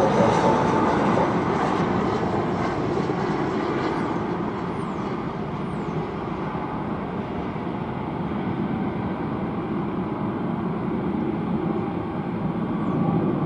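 Jet airliner's engines at takeoff power: a broad, steady rumble that slowly fades over the first several seconds as the aircraft departs.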